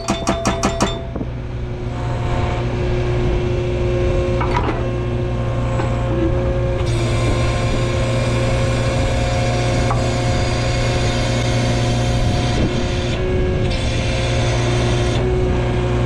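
Agrotk 680 skid-steer hydraulic breaker hammer pounding rapidly, about eight to ten blows a second, then stopping about a second in. The skid steer's engine keeps running steadily with a hydraulic whine. The hammer is quitting after a few blows, which the owner puts down to its nitrogen charge having dropped.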